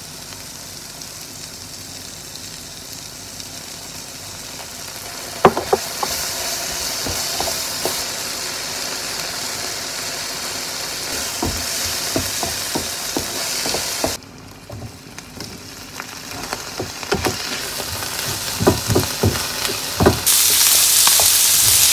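Sliced vegetables frying with soy and teriyaki sauce in an oiled pan, sizzling steadily, with a utensil stirring and knocking against the pan now and then. The sizzle gets louder about five seconds in, drops back around fourteen seconds, and comes back loud near the end.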